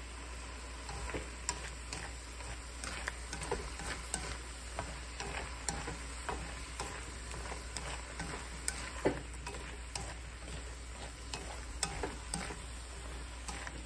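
Sliced bitter melon and egg sizzling in a non-stick wok while being stir-fried with wooden chopsticks. A steady frying hiss runs under frequent irregular light clicks and scrapes of the chopsticks against the pan as the egg sets.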